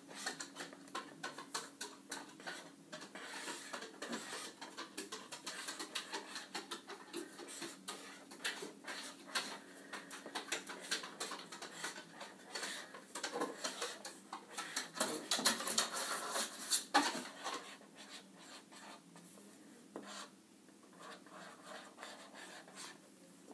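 Felt-tip marker strokes scratching and ticking on paper: a long run of short hatching strokes, busiest about two thirds of the way through.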